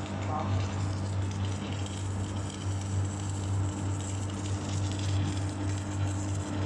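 Automatic storage-tank welder running: a steady electric arc crackle and sizzle over the constant low hum of the welding machine.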